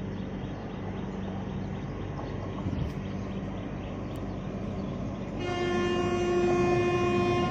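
Steady running noise of a train, then about five seconds in an Indian Railways train horn sounds one long blast on a single steady note, the loudest thing in the clip.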